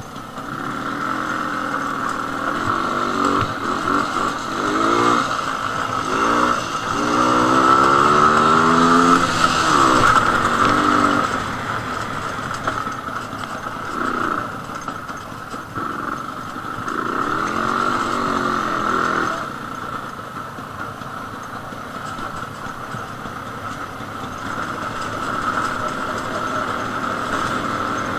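Jawa 250/353's single-cylinder two-stroke engine under way. The pitch rises and falls several times as the throttle is opened and eased, loudest about eight to ten seconds in, and then runs more evenly in the last third.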